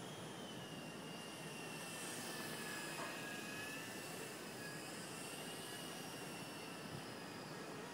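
Electric micro RC helicopter (Nine Eagles Solo Pro 328) in flight: a steady high motor and rotor whine whose pitch wavers slightly as it manoeuvres, over wind noise on the microphone.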